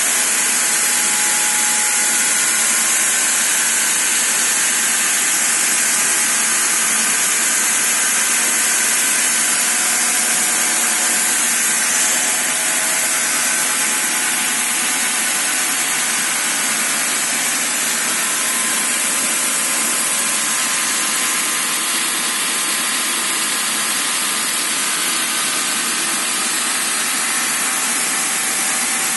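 Vertical sawmill running steadily, its blade cutting through wood with a continuous loud sawing noise.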